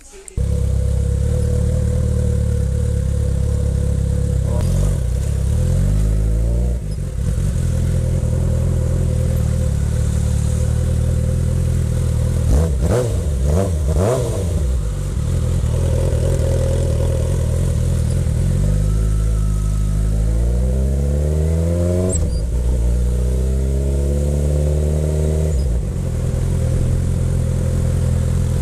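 Suzuki GSX650F's inline-four engine heard from on board while riding, with wind rush. It runs steadily between stretches where it rises in pitch as the bike accelerates through the gears: once about five seconds in and again twice past twenty seconds.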